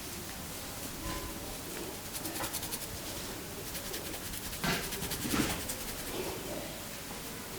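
Hands rubbing hair and scalp in a vigorous head massage: a fine rapid crackling of hair partway through, then two louder swishing strokes about five seconds in.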